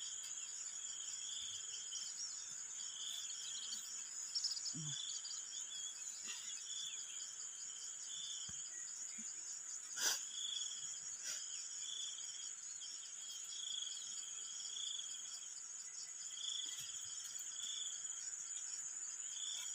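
Insects calling: a steady high-pitched drone, with a shorter chirp repeating roughly once a second. A single sharp knock sounds about halfway through.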